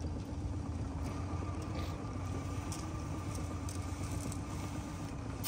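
Steady low motor hum with a faint steady tone held above it.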